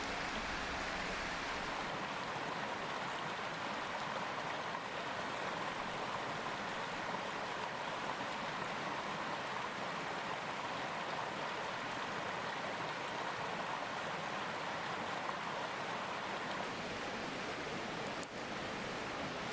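Mountain stream flowing steadily, an even wash of running water.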